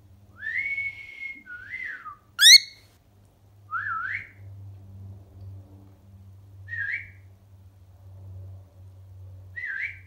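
Male cockatiel whistling a series of short notes, mostly quick rising slurs, with one longer held note near the start and a loud, sharp upward whistle about two and a half seconds in.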